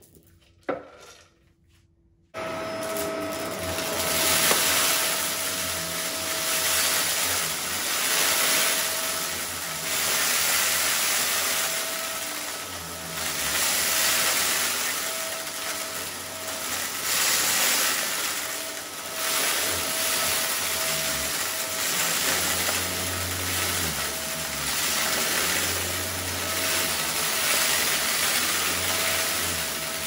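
Shark upright vacuum cleaner switching on abruptly about two seconds in, then running steadily, its level rising and falling every couple of seconds as it is pushed back and forth over a shag rug, sucking up small rocks.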